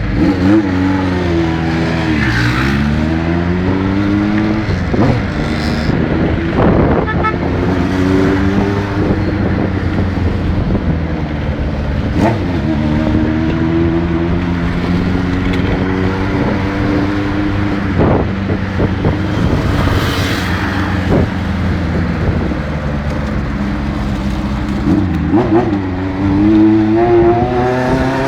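Honda CB550 Four's air-cooled inline-four engine pulling a moving bike. Its pitch climbs under acceleration and drops back at each gear change several times, with a steady cruising stretch in the middle.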